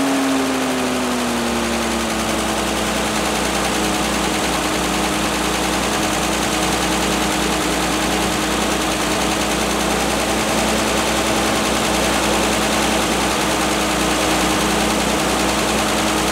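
International R-185 fire truck's spark-ignition gasoline engine idling steadily, newly started after sitting for about six years. Its speed eases down a little over the first couple of seconds, then holds even.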